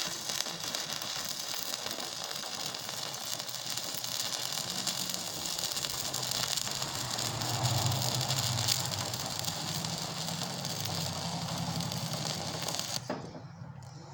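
Stick-welding arc from an E6013 3/32-inch rod at 45 amps DC electrode positive on 1/16-inch mild steel square tubing, running steadily as the bead is laid. The arc is broken and the sound stops about a second before the end.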